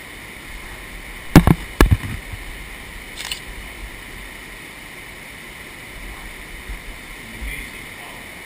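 Two sharp knocks about half a second apart, a second and a half in, then a fainter click, over a steady hiss: handling knocks on a handheld camera.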